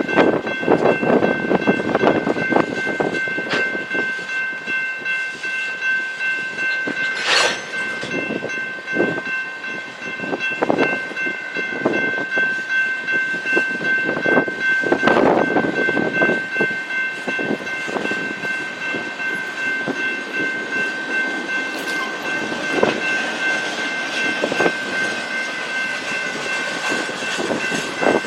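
A train rolling past, its wheels knocking over rail joints in a steady run of clacks. Over it sits a steady high-pitched tone of several pitches.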